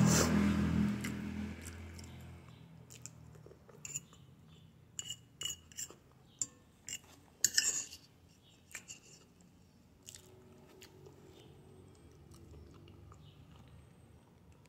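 Mouth-close chewing of soft stewed cassava, with a metal fork clinking and scraping against a glass bowl in a dozen or so short, sharp ticks, the loudest about halfway through. A low rumble fades out over the first two seconds.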